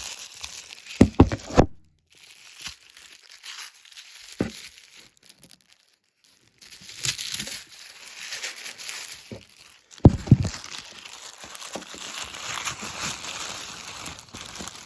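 Paper wrapping crinkling and tearing as a packaged toy train car is unwrapped by hand. There are a few louder knocks, about a second in and again near ten seconds.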